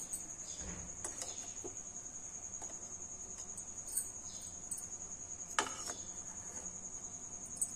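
Steel bowls clinking on a metal steamer stand in a pan as they are set in place: a few sharp knocks, the loudest about two-thirds of the way through with a short ring. A steady high-pitched trill runs underneath.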